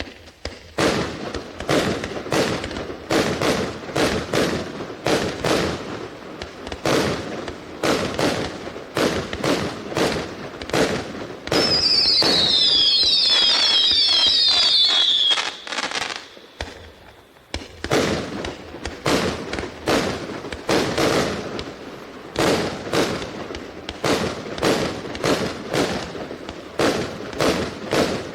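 A 200-shot, 0.8-inch consumer firework cake firing, its tubes launching shots several times a second. About twelve seconds in, a volley of whistles goes off together for about four seconds, each whistle falling in pitch, before the rapid shots resume.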